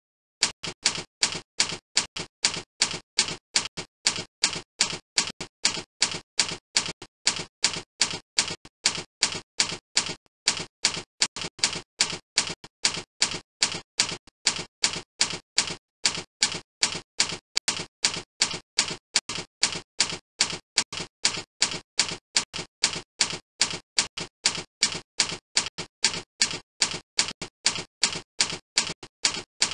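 Looped typing sound effect laid under text being revealed on screen: a steady run of sharp clicks, about three a second, alternating louder and softer.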